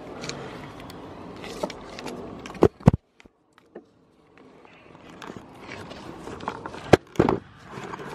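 Goats bumping and rubbing against a camera at close range: fur brushing over the microphone, with scattered clicks and a few loud knocks, the biggest about three seconds in and near the end. The sound drops out briefly after the first big knock.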